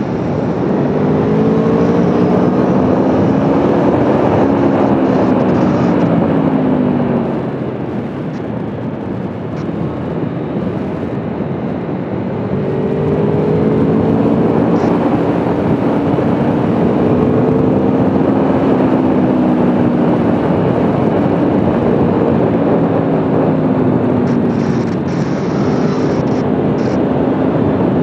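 Aprilia Tuono V4 1100's V4 engine pulling hard through the gears over a heavy rush of wind. The engine note eases off about seven seconds in, then climbs again in a series of rising runs from about twelve seconds.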